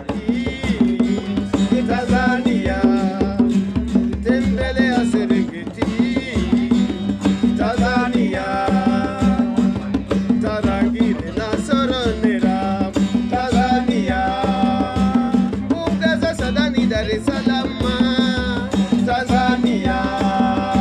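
Acoustic guitar and a djembe hand drum playing together in a steady rhythm, with a man singing over them.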